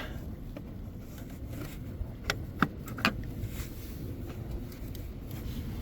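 Three sharp metallic clicks and clinks, a little under a second apart, as the negative battery cable terminal is handled, over a steady low background rumble.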